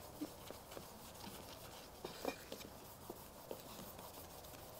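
Faint rubbing of a cotton stockinette pad with metal polish over the stainless-steel back of an iPod, with a few light scattered ticks.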